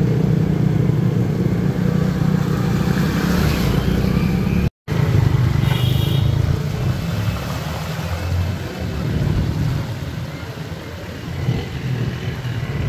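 Motor vehicles running in the street, cars and motorcycles, with a steady low engine and traffic noise. The sound drops out for a split second about five seconds in.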